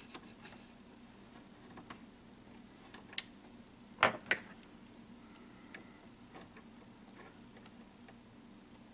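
Scattered small metallic clicks and taps as a tiny retaining clip and tools are worked against the mechanism of a 1967 Teac A-4010S reel-to-reel tape deck, with a sharper pair of clicks about four seconds in.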